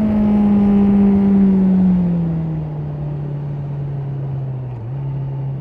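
Honda CB650R's inline-four engine and exhaust running with the revs falling steadily as the bike slows from high speed, the pitch sinking throughout. Near the end the note dips and steps back up once, a downshift.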